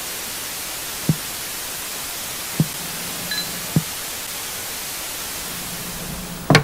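Steady TV-static hiss. Three short low thumps sound in it about a second and a half apart, with a brief beep between the second and third, and a louder hit comes right at the end.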